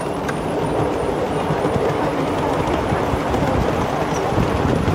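Steady rumble and clatter of a ride-on miniature railway train's wheels running along the rails, heard from aboard the passenger car, growing slightly louder.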